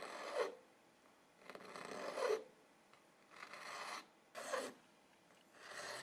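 A metal file scraping back and forth across a small hard piece of cured red epoxy resin, shaping it: about five separate rasping strokes, each up to a second long, with short pauses between.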